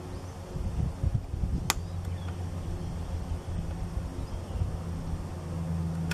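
Caulking gun working a bead of caulk, with a sharp click about two seconds in and another near the end, over a steady low motor hum and some low rumbling on the microphone.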